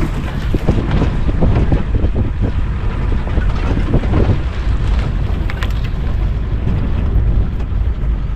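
Safari jeep running along a rough track, a steady low rumble with occasional knocks and rattles, with wind buffeting the microphone.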